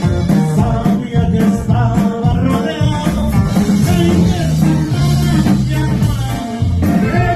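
Live norteño band music with accordion, guitar and drum kit playing together.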